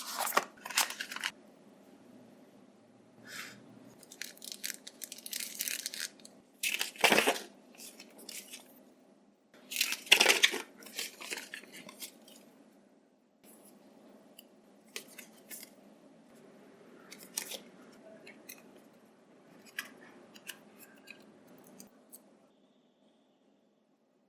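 Earbuds packaging being handled and opened by hand: cardboard and plastic rustling and tearing in irregular bursts, with scattered clicks and taps. The two loudest bursts come about 7 and 10 seconds in.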